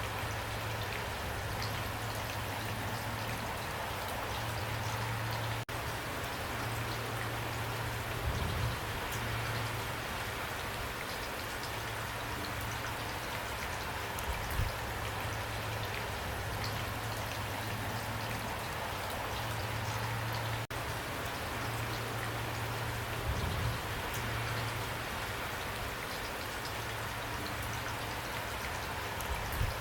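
Steady heavy rain pouring down, with a dense patter of drops hitting surfaces. A low hum comes and goes underneath, and there are a few soft thumps.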